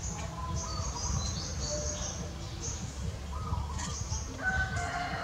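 A rooster crowing: a broken start about three and a half seconds in, then one long held note. Small birds chirp high-pitched in the first half, over a steady low rumble.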